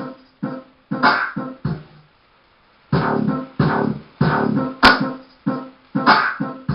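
Music made of short, choppy instrument stabs in a stop-start rhythm; it drops out for about a second around two seconds in, then picks up again. A single sharp click comes just before five seconds in.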